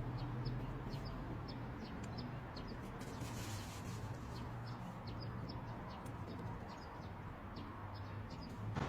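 Small birds chirping over and over in short, high notes, with a steady low hum underneath.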